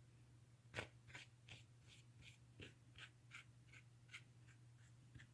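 Faint paintbrush strokes on canvas: short dry brushing sounds repeating about three times a second.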